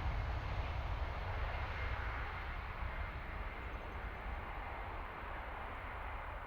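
Jet airliner's engines fading as the aircraft moves away: a steady rush with a deep rumble, its higher part dying off as it goes.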